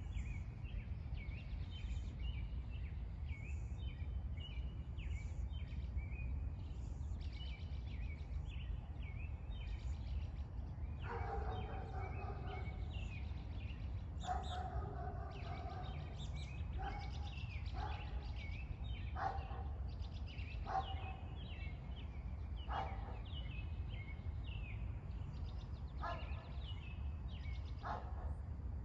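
Small birds chirping throughout over a steady low rumble. From about a third of the way in, a dog barks again and again, a bark every second or two.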